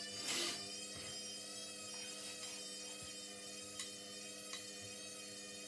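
Washing machine on its spin cycle: a steady hum made of many tones from the spinning drum and motor. A brief rush of noise comes just after the start, and there are a couple of faint clicks later.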